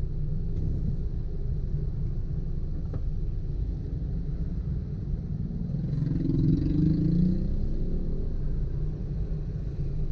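Vehicle driving in slow traffic: a steady low engine and road rumble, with an engine note rising briefly about six seconds in.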